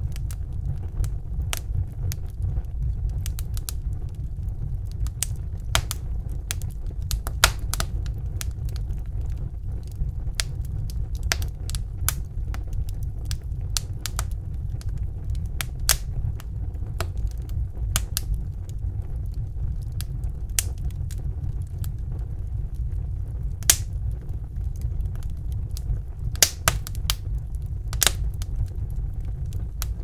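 Wood fire crackling: irregular sharp pops and snaps, several a second, over a steady low rumble of the burning logs, with a few louder pops in the last several seconds.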